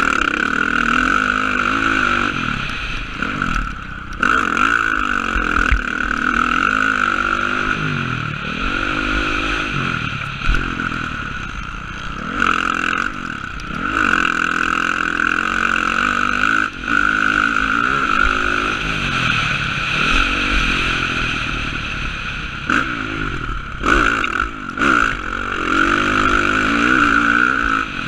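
Dirt bike engine ridden hard around a motocross track, heard from the rider's helmet. The revs climb and drop over and over with throttle and gear changes, over a steady rush of noise, with a few brief knocks along the way.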